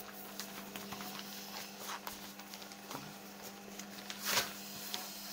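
Clear plastic pouch of a cross-stitch kit crinkling and rustling as it is handled, with scattered small crackles and a louder crackle about four seconds in.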